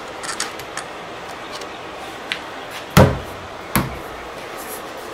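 Two heavy thumps on a freshly glued Masonite hardboard sheet, about three quarters of a second apart, the first the louder, as the sheet is knocked down onto the bench top along its seam; a few light taps and rubs on the board come before them.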